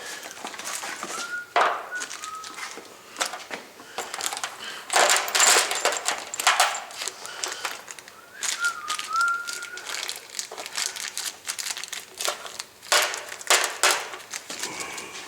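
Sheet-metal water-heater exhaust vent pipe being handled and fitted: irregular clanks, clicks and scraping, with a dense rustling scrape about five seconds in. A thin, wavering high whine sounds twice, once early and once past the middle.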